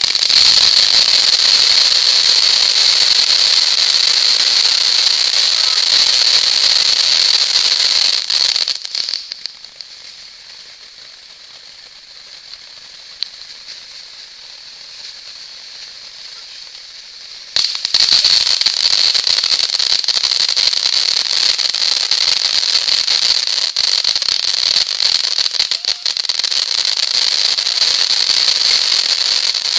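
World of Wonders ground fountain fireworks spraying sparks with a loud, steady hiss. About eight seconds in the hiss dies down to a much quieter one. Then, a little past halfway, a loud hiss starts again suddenly and runs on.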